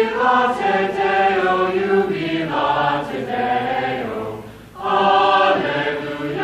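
A mixed-voice youth choir singing sustained chords, with a short break about four and a half seconds in before the next phrase begins.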